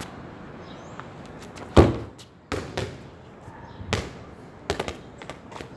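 Futsal ball being kicked and bouncing on a hard outdoor court: one loud thud a little under two seconds in, then a handful of sharper knocks.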